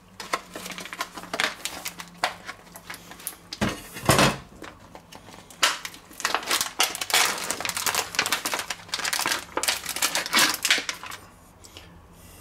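A wooden spatula scrapes and knocks in a nonstick frying pan as diced bacon is stirred, with a plastic packet crinkling. The clicks come in quick, uneven runs and thin out about eleven seconds in.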